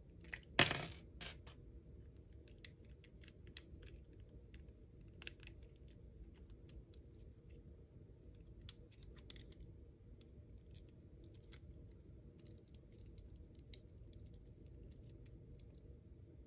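LEGO plastic bricks clicking and snapping as a small brick-built ship model is pulled apart by hand. One sharp snap about half a second in is the loudest, followed by a smaller one, then a scatter of faint clicks.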